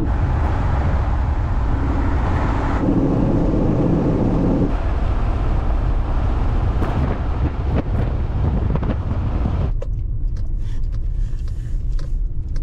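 Road and tyre noise inside a car's cabin while driving, a steady low rumble with hiss. About ten seconds in the hiss drops away abruptly, leaving a quieter low rumble as the car moves slowly.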